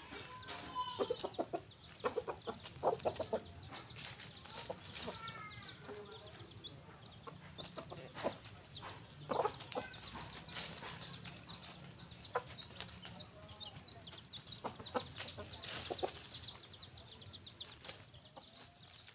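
Chickens clucking with short scattered calls, over many short sharp clicks and rustles.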